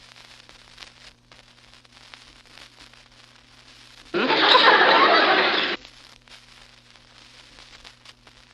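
A short burst of studio audience laughter, about a second and a half long, starting about four seconds in. Before and after it, faint crackle and a steady low hum from the vintage recording.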